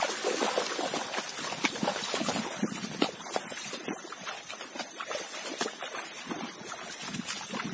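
Rustling and light clicking as a crab is grabbed from wet ground and dropped into a plastic bag, over a steady high-pitched chorus of night insects.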